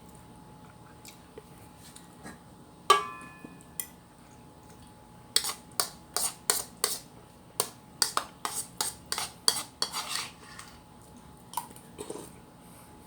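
Cutlery clinking and scraping on a plate during a meal: one sharp, ringing clink about three seconds in, then a quick run of a dozen or more taps and scrapes lasting about five seconds.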